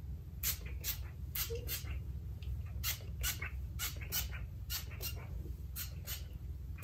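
Finger-pump bottle of Dove Extra Hold hairspray sprayed over hair in quick short hisses, about a dozen of them, often two in quick succession.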